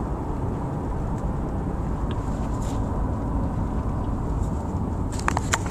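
Steady low rumble of road and engine noise heard inside a moving car's cabin. A few sharp clicks come near the end.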